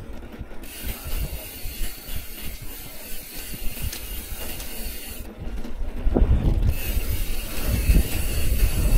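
Mountain bike's rear freehub buzzing as it coasts, with the pawls ticking fast. The buzz breaks off for about a second past the middle, as when the rider pedals, then returns; a low rumble from the ride grows louder over the last few seconds.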